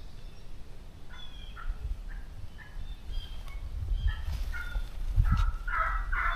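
Wild turkey calling: a string of short yelps and clucks that comes faster and louder near the end, over a low rumble.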